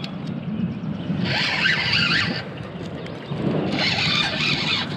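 Two kayak paddle strokes through shallow, weedy water, each a swishing splash about a second long, over a low steady rumble of wind on the microphone.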